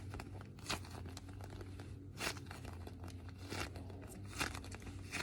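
Foam squishy toy being squeezed and handled, giving soft crinkly swishes four or five times over a faint steady low hum.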